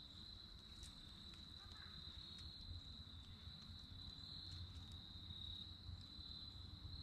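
Faint, steady high-pitched insect trill that holds one pitch without a break, over a low wind rumble, with a few small clicks.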